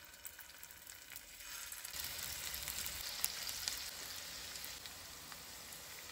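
Potato bites sizzling as they shallow-fry in hot oil in a nonstick pan, with scattered small clicks; the sizzle grows louder about two seconds in as more pieces go into the oil.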